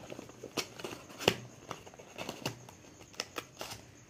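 A cardboard box being closed by hand: its top flaps folded and tucked shut, giving a string of light taps and scrapes, the sharpest about a second in.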